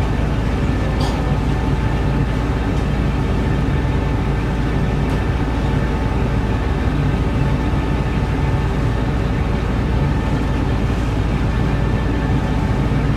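Passenger ferry's engine running with a steady drone and a constant low rumble beneath it.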